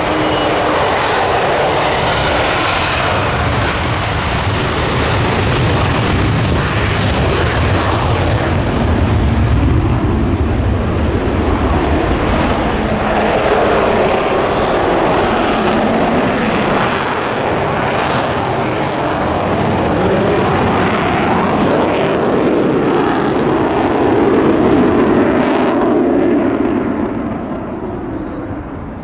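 Avro Vulcan bomber's four Rolls-Royce Olympus turbojets at full power on take-off and climb-out, a loud steady jet rumble that swells and then fades away near the end as the aircraft departs.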